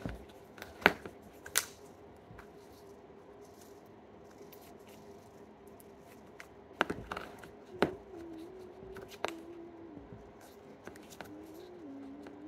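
Sharp plastic clicks and snaps from a small slime container and its lid being handled, a few in the first two seconds and again around seven and eight seconds in, with quieter handling between.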